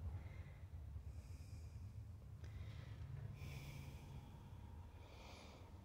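Faint breathing, several soft breaths about every second or two, over a low steady hum.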